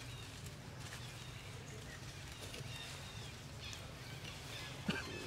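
Faint outdoor ambience: scattered short, high chirps over a steady low hum, with one sharp click near the end.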